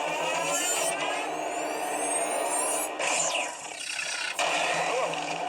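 Action-film soundtrack played back and picked up by a phone: a dense mix of sound effects and score. Rising sweeping tones fill the first half, with a sudden loud hit about three seconds in and another near the end.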